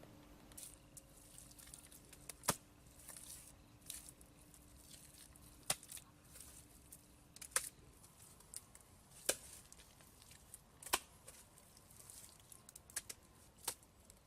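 Sharp taps or knocks, about one every two seconds, with light rustling and scraping between, from hand work on building materials.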